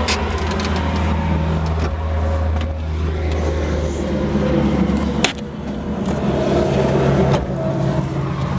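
Deere 35D mini excavator's diesel engine running steadily. About five seconds in there is a sharp click and the engine note changes.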